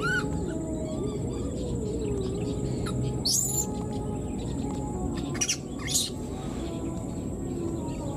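A baby macaque's high, thin calls for its mother: a couple of short squeaks at the start, a louder sweeping cry about three seconds in, and two sharp cries around five and a half to six seconds, over a steady high whine in the background.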